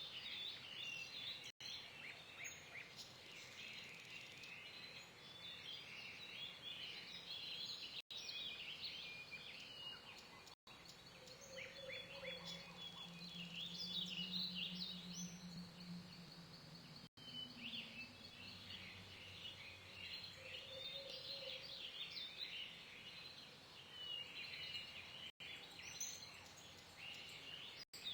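Birds chirping and singing in many overlapping short calls, faint and continuous. A low drone joins for a few seconds in the middle, and the sound drops out to silence for an instant several times.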